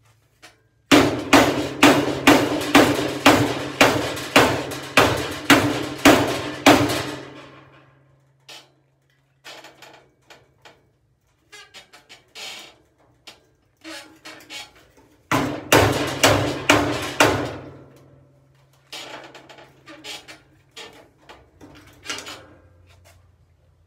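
A screwdriver being hammered into the seam of a 1952 Chevrolet Advanced Design pickup's cowl panel to pry it free: a quick run of sharp, ringing metal strikes about two or three a second, then lighter scattered taps, and a second shorter run of strikes about two-thirds of the way through.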